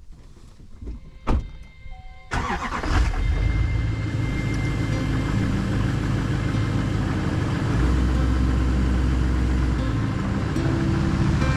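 A pickup truck's door shuts about a second in, then the engine cranks, catches and settles into a steady idle.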